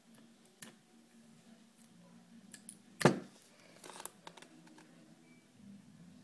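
Paper and adhesive tape being handled while taping a folded-paper spear: scattered small rustles and clicks, one louder sharp sound about three seconds in, and a cluster of clicks about a second later.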